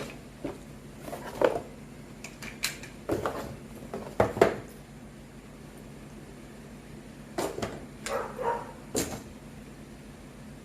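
Scattered clicks and knocks of small items being handled and set down, in irregular clusters with a quiet gap about halfway through.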